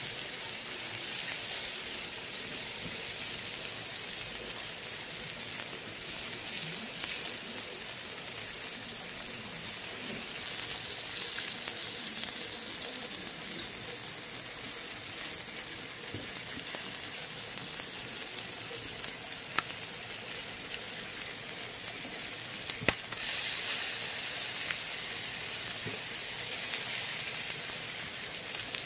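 Pork intestines and vegetables sizzling steadily in fat on a round griddle, with a few sharp ticks, the loudest about 23 seconds in.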